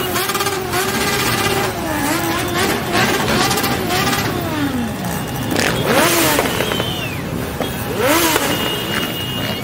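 Several motorcycle engines running in a slow procession, their pitch rising and falling as riders work the throttle, with loud revs about two, six and eight seconds in.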